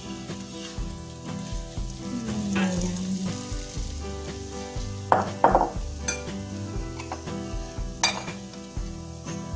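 Hot oil sizzling in a wok during deep-frying, with a metal spatula stirring and scraping. Sharp clatters of metal on the wok and plate come about five seconds in and again near eight seconds.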